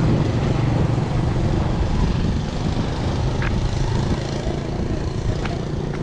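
Motorcycle traffic on the road, a steady low engine hum slightly louder in the first second, with two short ticks in the second half.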